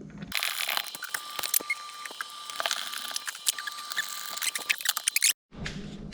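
Rapid, irregular clicking and rattling of small hard parts being handled and fitted, with a faint steady tone underneath; it cuts off abruptly near the end.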